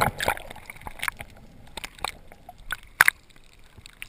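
Underwater sound around a diver: a brief rush of bubbles at the start, then sloshing water broken by scattered sharp clicks and pops, the loudest about three seconds in.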